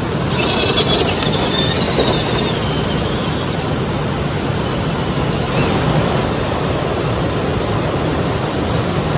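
Small electric RC rock crawler's motor and gears whining briefly over the first few seconds, over a steady rushing noise.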